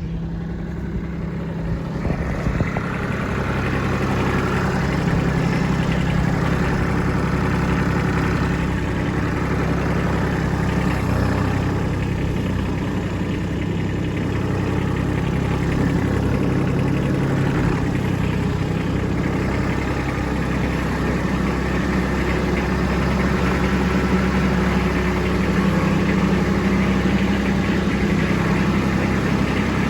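Kubota B2601 compact tractor's three-cylinder diesel engine running steadily, its level building over the first couple of seconds and then holding even.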